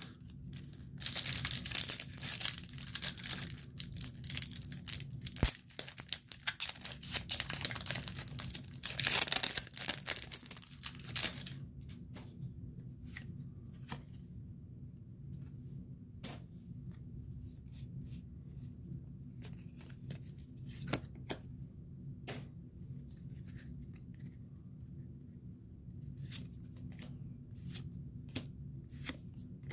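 A Pokémon TCG Crown Zenith booster pack's foil wrapper being torn open and crinkled for about ten seconds, then quieter clicks and rustles of the cards being handled.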